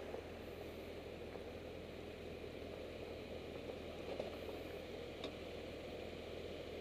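Steady rushing of a fast, swollen river, with a low steady hum underneath.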